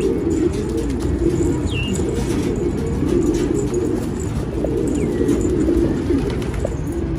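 Several domestic pigeons cooing steadily, their coos overlapping. Two thin falling whistles sound high above them, about two seconds in and again near five seconds.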